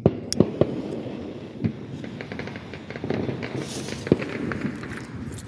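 A lit firework fuse sputtering and crackling, with scattered sharp clicks and a few louder knocks.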